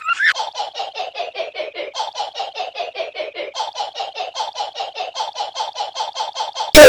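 A baby's giggle chopped into a rapid stutter loop, the same short laugh repeating about five or six times a second and stepping up in pitch twice. Near the end it is cut off by a sudden, much louder blast of sound.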